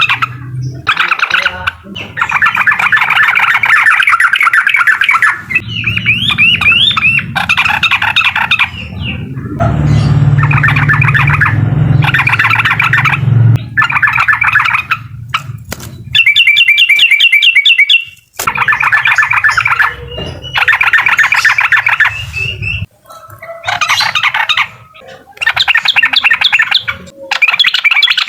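Yellow-vented bulbul (trucukan) singing in repeated bursts of fast, chattering song in the 'uklik' style; each phrase lasts from one to several seconds, with short pauses between.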